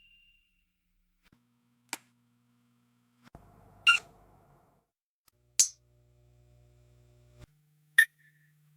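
Microphone and amplifier sounds: four short, sharp squealing pops, about two seconds apart, with a low electrical hum that switches on and off between them.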